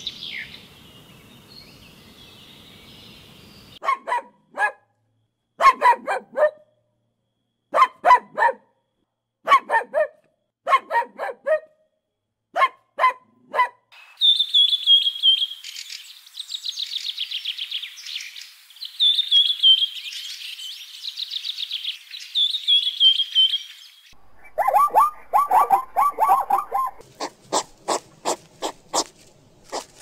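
Animal sounds in succession. First come short, sharp bark-like calls, mostly in pairs, then about ten seconds of small birds chirping and trilling. Near the end there is a quick chattering call and a run of evenly spaced clicks.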